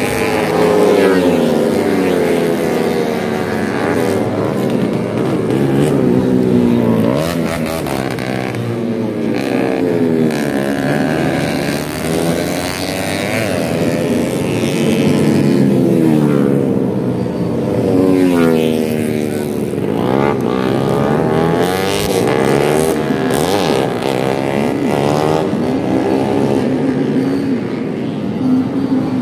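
Several tuned four-stroke underbone racing motorcycles of up to 150 cc revving hard. Their engine notes overlap and keep rising and falling as they accelerate, shift and pass.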